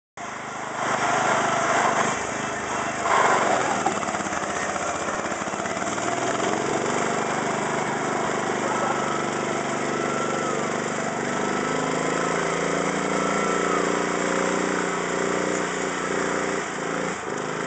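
Small garden tractor engine running steadily under load as it tows a car up a slope.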